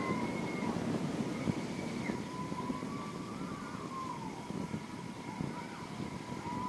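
Wind rushing over the microphone on a spinning chair swing ride, a steady low rumble, with a thin whine that wavers up and down in pitch.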